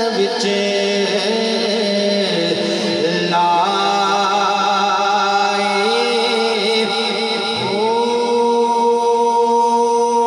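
Devotional naat singing: a single voice holds long, drawn-out melodic notes and glides up to a new held note near the end, over a steady drone.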